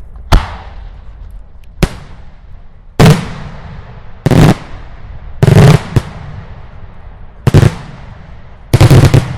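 Daylight fireworks shells exploding with loud bangs, about seven in irregular succession. Several come as rapid double or triple reports, and each trails off in a fading echo.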